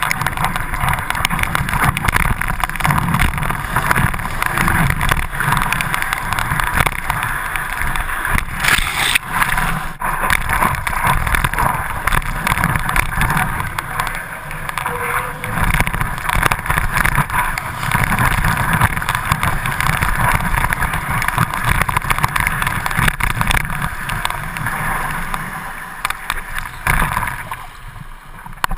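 Water rushing and splashing against a stand-up paddleboard as it rides a breaking wave, with wind buffeting the board-mounted microphone. It grows quieter a couple of seconds before the end as the ride slows.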